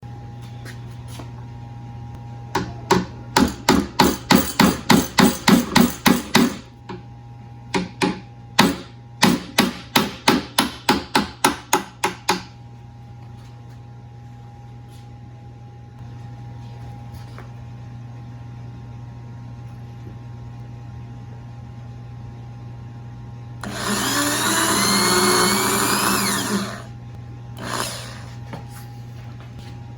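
Hammer strikes in two quick runs of about three to four blows a second, over a steady hum; about three seconds of a power tool running with a shifting whine follows later.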